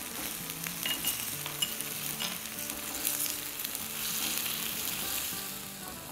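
Chopped onions sizzling in oil in a nonstick frying pan as they sauté, stirred with a silicone spatula, with a few faint ticks from the spatula against the pan.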